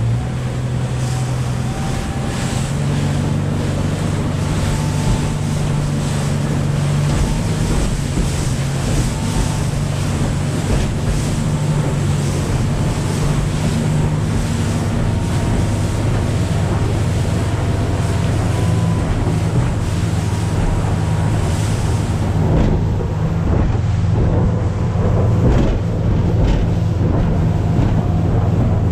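200 HP Mercury outboard running steadily under throttle while the deep-V hull runs through chop, with water rushing past and wind buffeting the microphone.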